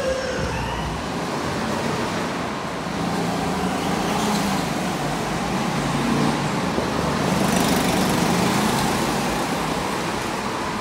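Go-karts running around an indoor kart track: a steady motor noise that swells slightly past the middle.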